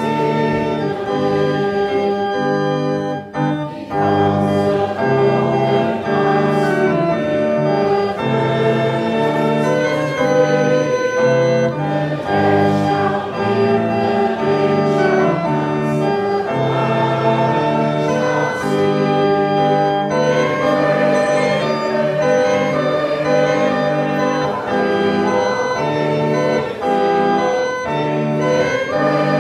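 Church organ accompanying a congregation singing a hymn, with steady chords changing throughout.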